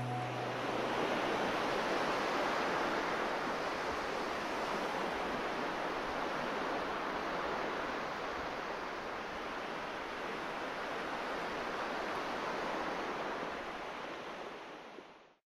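Steady rushing noise with no tune or beat, like surf, which cuts off abruptly near the end.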